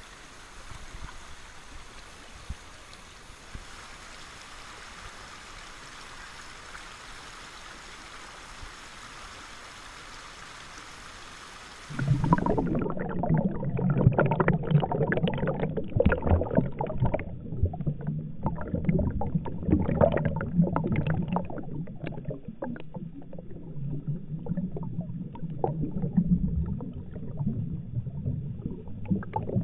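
Rushing water of shallow creek rapids over rocks, a steady hiss. About twelve seconds in the sound goes under water: a louder, muffled churning gurgle of current and bubbles with no treble, full of small irregular knocks and pops.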